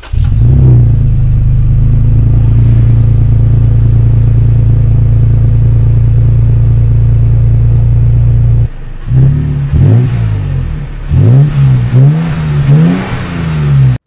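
Third-gen Toyota Tacoma pickup's engine and exhaust idling steadily, then revved in a series of quick blips from about nine seconds in, the pitch rising and falling with each one.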